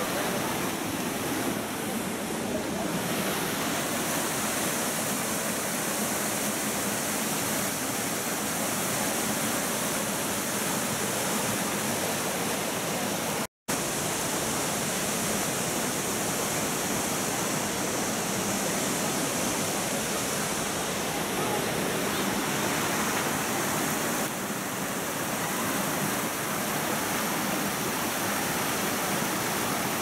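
Minoh Falls waterfall and its rocky stream, a steady rush of falling and running water. It cuts out for an instant about halfway through.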